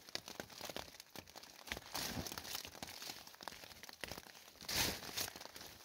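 Plastic bag crinkling and rustling as gear is packed up inside a tent, with rain falling on the tent fly.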